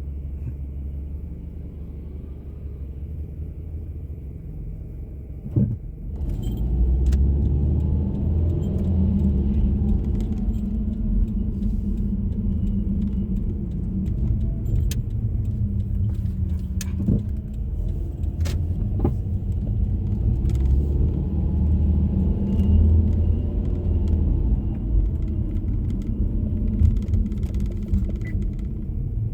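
Car driving with steady road and engine rumble. It gets louder about six seconds in, as if pulling away or speeding up, just after a sharp click.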